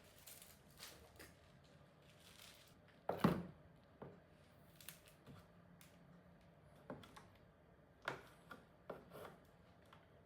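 Objects being handled: intermittent rubbing and scraping with light knocks, and one louder knock about three seconds in.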